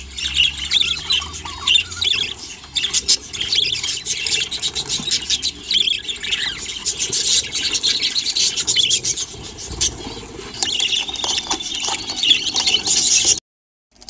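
Budgerigars squawking and chattering in rapid, harsh calls, with the sound cutting off abruptly just before the end.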